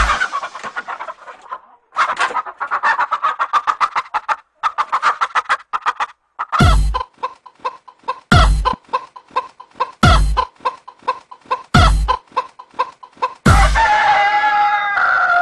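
Music built from hen clucking and rooster crowing over a drum beat. Rapid clucks run throughout, a heavy drum hit lands about every second and a half to two seconds, and a crowing call comes near the end.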